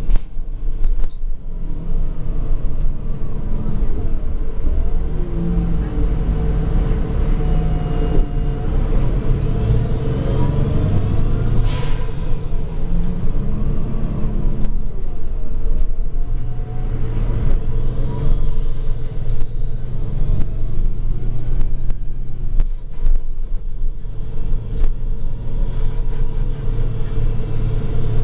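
Inside a moving MAN NG313 CNG articulated bus with a Voith automatic gearbox: the engine and driveline run with a heavy low rumble that swells and eases as the bus pulls away and slows. Whines glide up and down in pitch over a steady hum.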